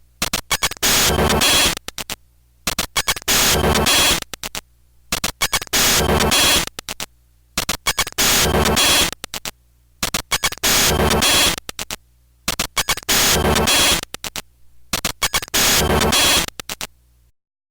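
Digital glitch transition sound effect: choppy, stuttering bursts of static-like noise that break into a short solid burst. The same pattern repeats about seven times, about every two and a half seconds.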